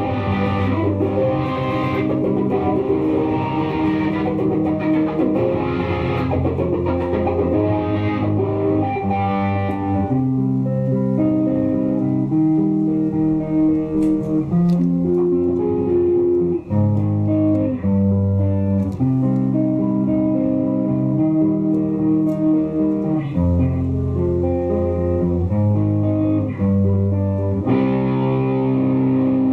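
Electric guitar, a Fender Stratocaster on its neck pickup, played through a wah pedal into a Blackheart Little Giant tube amp, playing sustained notes and licks. The tone is bright for about the first ten seconds, duller through the middle, and bright again near the end as the wah is rocked.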